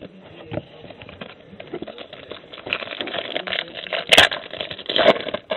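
Trading cards and their foil pack wrapper being handled: crinkling, rustling and card-on-card clicks that grow louder after about two seconds, with two sharp snaps about a second apart near the end.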